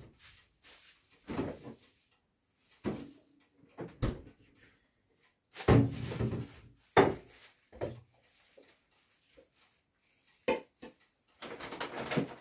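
Kitchen cupboard doors and drawers opening and closing: a string of irregular knocks and clunks, loudest about six to seven seconds in, with a longer noisy stretch near the end.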